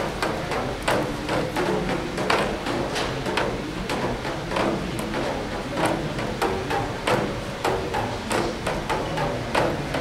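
Irregular sharp knocks and clacks, several a second, over a steady background haze.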